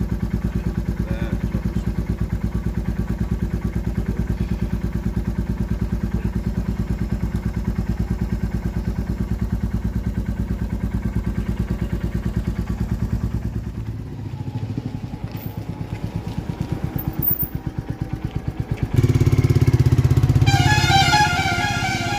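Motorcycle engine idling with a steady, fast low beat. About 14 seconds in the beat weakens and breaks up. From about 19 seconds the sound is louder, with a short high-pitched tone near the end.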